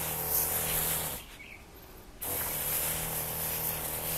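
Battery-powered pesticide sprayer's electric pump humming steadily while its wand hisses out a spray. The pump and spray stop for about a second, a little over a second in, then start again.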